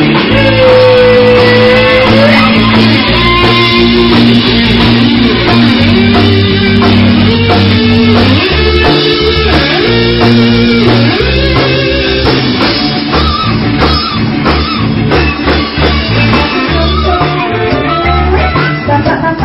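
Instrumental passage of band music, a guitar-led melody over bass and drums, with no singing. A held note bends near the start, then a short melodic phrase repeats.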